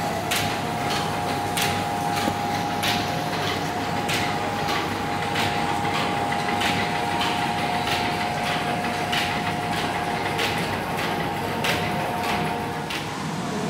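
Repeated metallic clanking knocks, roughly two a second and uneven in spacing, over a steady machine hum; the knocks thin out near the end.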